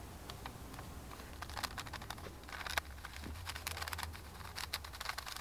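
Fingertips patting and pressing a sheet of gold leaf on its wax-paper backing, making faint, irregular crinkles and soft ticks that get busier after about a second and a half.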